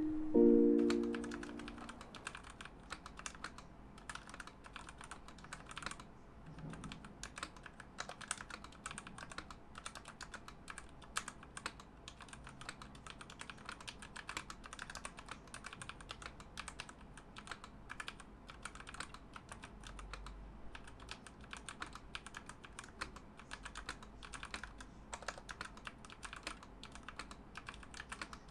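Continuous typing on a Womier WK61 60% mechanical keyboard with linear switches and pudding keycaps: a dense, irregular run of keystroke clicks. Background music fades out in the first two seconds.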